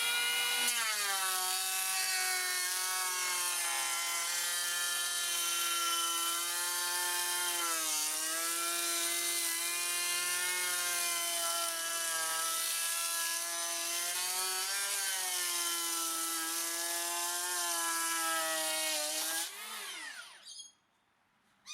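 Makita 40V XGT cordless planer running and planing a board at full depth: a steady high whine whose pitch sags when the cut loads the motor, around eight and fifteen seconds in. Near the end the motor switches off and the cutter head spins down.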